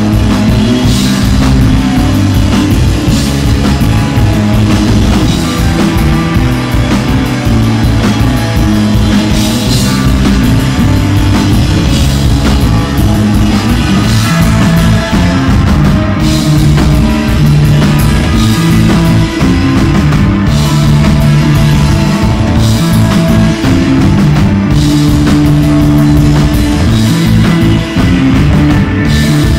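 Live desert rock band playing an instrumental on electric guitar, bass guitar and drum kit, loud and unbroken, with sustained bass notes under cymbal-driven drumming.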